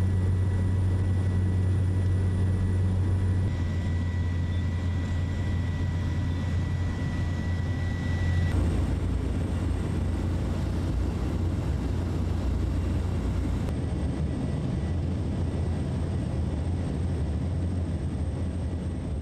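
Steady, loud engine drone of a patrol aircraft in flight, heard from inside its cabin. Its tone shifts slightly a few times where the footage is cut.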